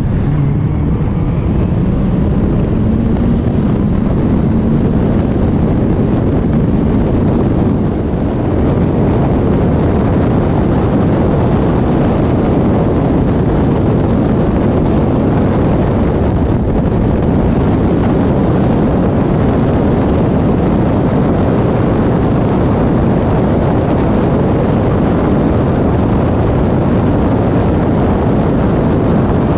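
Caterham 420R's four-cylinder Ford Duratec engine pulling hard at full throttle, heard from inside the open cockpit with wind buffeting the microphone. Its note rises over the first couple of seconds as the car accelerates, dips briefly about eight seconds in, then runs on loud and steady.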